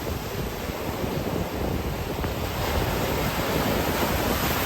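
Ocean surf breaking and washing up on a beach, a steady rushing noise, with wind buffeting the microphone.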